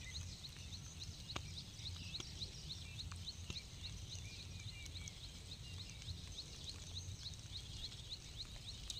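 Quiet rural outdoor ambience: a steady low rumble under a rapid series of faint, high chirps, about three a second, that fade out about six seconds in, with a few soft clicks.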